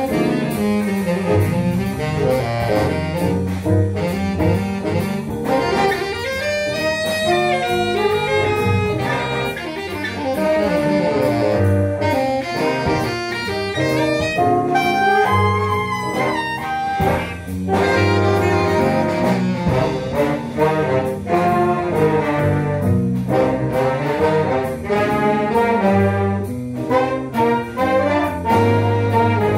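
Jazz big band playing, with the saxophone section and brass carrying the lines over a steady beat.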